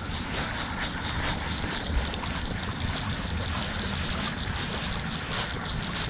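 Steady wind noise buffeting the microphone: a low rumble under a constant outdoor hiss.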